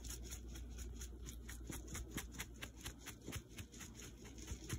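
Faint, irregular rustling and light scratchy ticks of dry breadcrumbs in a glass baking dish as grated Parmesan is worked in.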